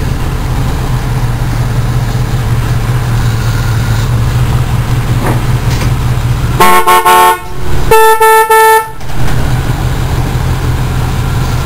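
A car horn taken off a Blazer and mounted on a bicycle honks twice a little past halfway: a short broken honk, then a steadier honk about a second long. A steady low rumble runs underneath.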